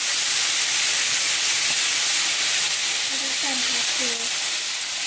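Chicken, vegetables and canned diced tomatoes sizzling steadily in a hot cast-iron skillet as the tomato liquid deglazes the pan, with a spatula stirring through it.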